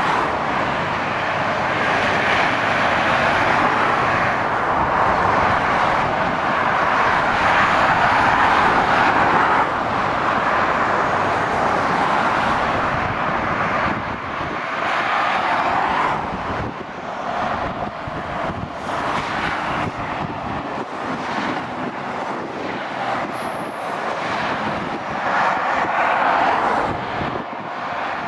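Steady noise of motorway traffic: heavy lorries and cars going by on the dual carriageway, mostly tyre noise on the road surface. It swells and eases as vehicles pass close beneath.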